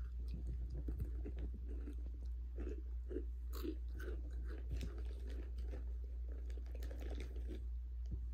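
Person chewing crunchy Takis rolled tortilla chips, with irregular crackly crunches throughout, over a steady low hum.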